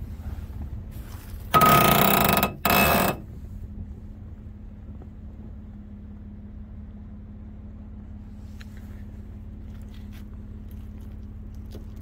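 Pickup truck engine idling with a steady low hum. About one and a half seconds in come two loud harsh bursts with a ringing tone, the first about a second long and the second about half that. A few faint light clicks come near the end.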